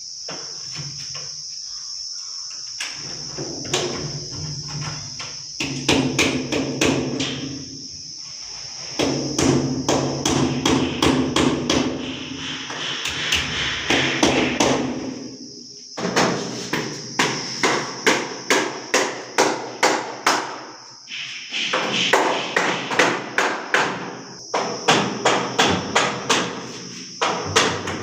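Repeated hammer blows, often in steady runs of about two strikes a second with short pauses between runs. A steady high-pitched tone runs underneath.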